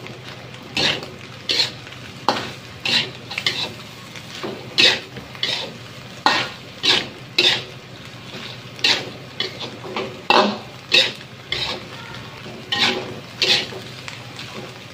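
Metal ladle scraping and turning vegetables in an aluminium wok during stir-frying, in repeated strokes about every half second to second, over a steady sizzle.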